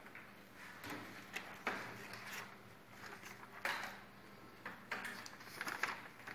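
Quiet classroom room tone with a faint steady hum and scattered soft rustles and clicks, about a dozen of them at irregular moments.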